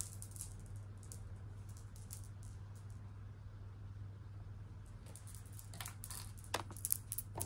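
Quiet room tone with a steady low electrical hum. In the second half come a few faint clicks and light rustles of jewelry being handled.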